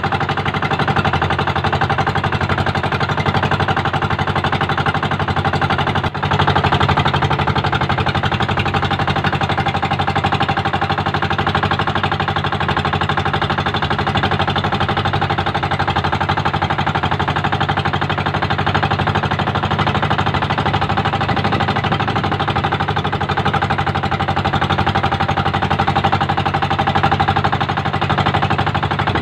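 Engine of a motorized outrigger boat running steadily under way, an even, loud chugging, with a brief dip about six seconds in.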